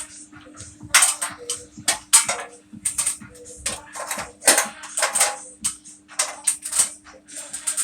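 Irregular metallic clinks and knocks of hand tools and metal parts as the blower motor is worked out of an air-conditioner fan coil unit, several sharp taps a second, over a steady low hum.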